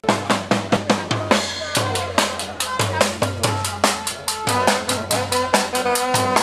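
Live brass band music: a marching bass drum with a cymbal mounted on top beats a fast, even rhythm of about three to four strokes a second, and brass horns play held notes that come through more strongly in the second half.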